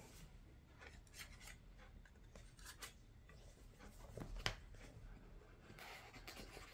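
Faint scraping and rubbing as a utility knife slits the seal of a cardboard phone box and the box is handled, with one sharper click about four and a half seconds in.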